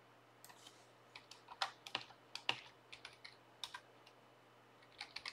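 Typing on a computer keyboard: a quick, irregular run of key clicks, then a pause and a few more clicks near the end.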